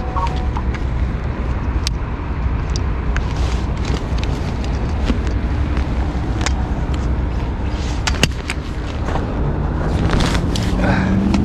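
Steady low outdoor rumble with scattered sharp clicks, and near the end a motor engine coming in, its pitch slowly rising.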